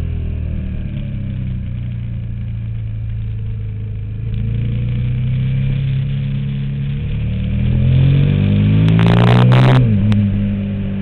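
KTM Super Duke's V-twin engine pulling steadily, then revving up over about three seconds and dropping sharply in pitch near the end, with a brief rush of noise at the peak of the rev.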